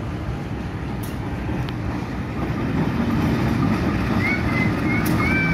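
Diesel locomotive rolling slowly toward and beneath the listener, its engine rumble growing louder over the last few seconds. A few short high-pitched chirps come near the end.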